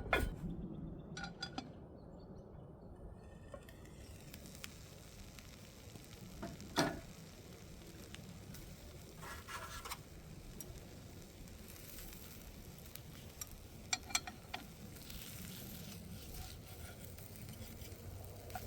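Breakfast sizzling as it fries in a pan, a steady hiss that starts about four seconds in. A few sharp clicks, most plainly around seven and fourteen seconds in, may be a utensil against the pan.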